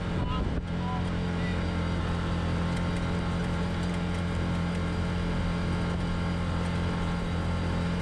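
Can-Am Commander side-by-side's engine running at a steady cruising speed, an even low drone under a haze of wind and tyre noise.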